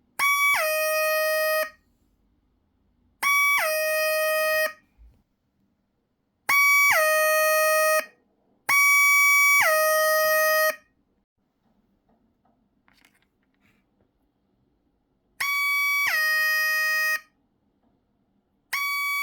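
Electronic siren from a single NE555 timer circuit: a buzzy tone that starts high and drops quickly to a lower pitch, held for about a second, sounded in separate blasts about a second and a half long with gaps of one to several seconds. There are five blasts, and a sixth begins near the end.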